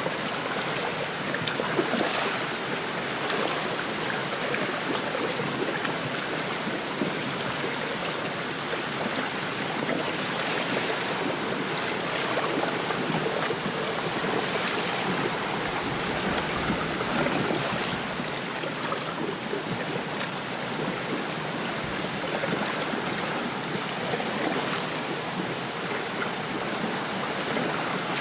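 Wind rustling through a reed bed, with small waves lapping at the lakeshore: a steady, even wash of noise.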